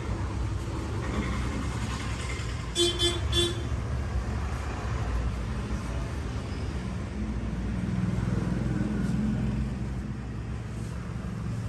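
A vehicle horn gives a quick series of short toots about three seconds in, over a steady low rumble of road traffic.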